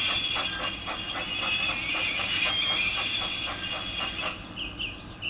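Steam locomotive puffing hard and fast, about five chuffs a second, under a steady high squeal; both stop about four seconds in. A few short bird chirps follow.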